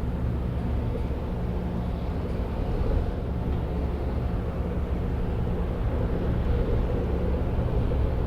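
A large ro-pax ferry's diesel engines running as the ship arrives, a steady low drone with several held low tones.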